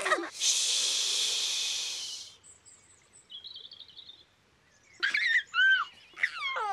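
A steady hiss lasting about two seconds, then a few faint bird chirps and a short trill. Near the end comes a baby's giggling and cooing, rising and falling in pitch.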